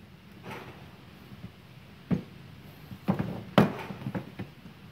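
A loaded steel-and-plastic toolbox being handled by its carry handle and turned around on a wooden pallet, giving a few separate knocks and clunks, the loudest about three and a half seconds in.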